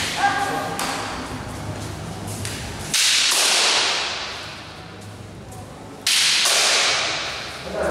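Kendo practice: two loud, sudden bursts of bamboo shinai strikes with shouting, about three seconds apart, each dying away over a second or so.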